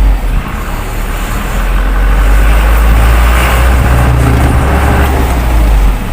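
Isuzu 4HL1 four-cylinder common-rail diesel engine running as the truck is driven through curves, with a steady low rumble that eases a little about a second in and builds again afterward. The engine keeps running at the slowdown where it used to stall, a sign that the stuck injector nozzle needles have been cured.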